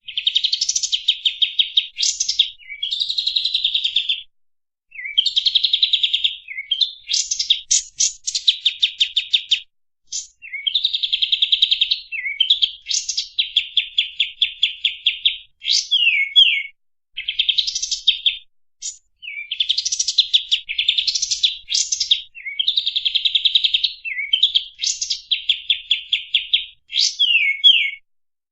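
Kapas tembak songbird singing in long, fast, tightly packed bursts of repeated high notes. Each phrase lasts a few seconds, with brief pauses between phrases and a few quick downslurred notes between them.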